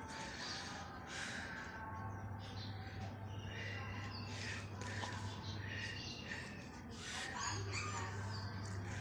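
Puppy whimpering and squeaking, with many short high-pitched cries scattered throughout, over a steady low hum.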